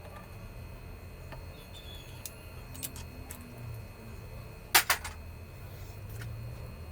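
Hand tools and metal engine parts clinking during a teardown: a few light clicks, then a sharp double clack about two-thirds of the way through, over a low hum.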